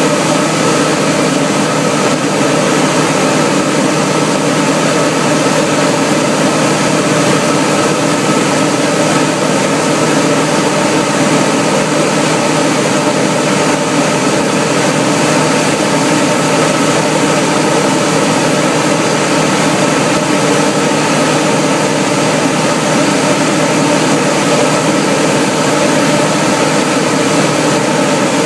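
Single-engine light aircraft's engine and propeller droning steadily in cruise flight, heard from inside the cockpit.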